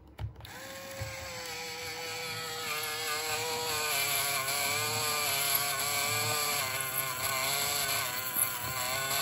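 A small geared motor mechanism whirring steadily, with a whine whose pitch sags slowly and wavers a little.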